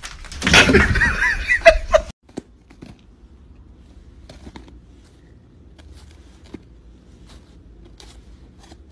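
A loud burst of high-pitched, wavering human laughter lasting about two seconds. It stops abruptly, leaving faint room sound with a few light clicks.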